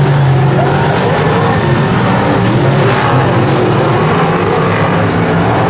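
A pack of superstock race cars running at speed around a dirt oval, many engines at once, their notes rising and falling as the cars accelerate out of the turns.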